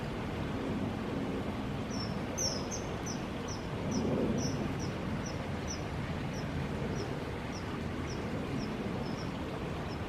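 Common kingfisher calling: a run of short, shrill, slightly falling notes, about two a second, starting about two seconds in and going on to near the end, over a steady low rushing background.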